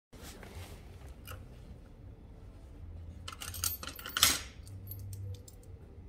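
Light metallic clinks and jingles of a small keyed hasp lock and its keys being handled, a cluster of clinks about three to four and a half seconds in, the loudest near four seconds.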